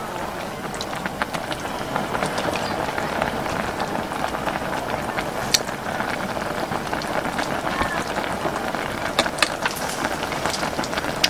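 Sukiyaki of beef, mushrooms and vegetables sizzling and simmering in a pot on a portable gas stove: a steady crackling hiss, with a few sharp clicks as chopsticks knock against the pot.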